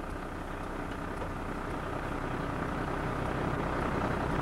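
Tandem-axle dump truck's engine idling steadily in neutral with the brake set, slowly growing a little louder.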